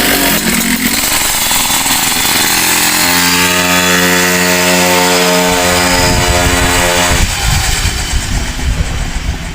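Two-stroke 71cc stand-up scooter engine through an MB Racing loop tuned pipe with its spark arrester fitted, revved hard. It holds a steady high-revving note from about three seconds in until about seven seconds, then the throttle is let off and the engine falls back.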